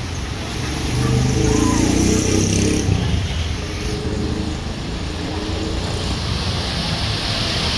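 Road traffic: vehicle engines running with a steady low rumble that grows louder near the end.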